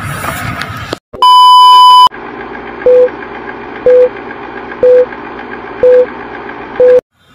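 Old-film countdown leader sound effect: a long, loud beep lasts about a second, then five short beeps follow, one each second, over a steady whirring hiss. It cuts off abruptly near the end.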